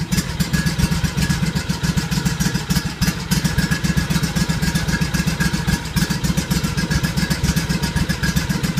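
Engine idling steadily with a fast, even exhaust beat as it warms up after a cold start at about 10 degrees. The owner suspects some gasoline freeze-up.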